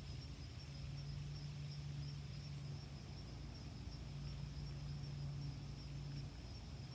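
Faint outdoor background: a steady high insect trill over a soft hiss, with a low hum that drops out briefly a few times.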